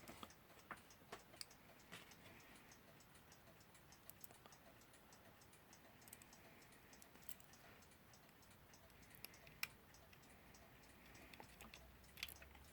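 Faint, irregular small clicks of tools working on an alarm clock movement as its screws are put in. The clock is not yet running, so there is no steady ticking.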